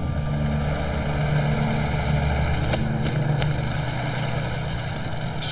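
Snow groomer's diesel engine running steadily at low revs, a deep even drone, with two faint clicks about three seconds in.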